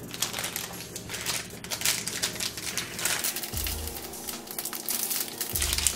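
Thin plastic toy packaging crinkling and crackling irregularly as hands squeeze and work open a small packet.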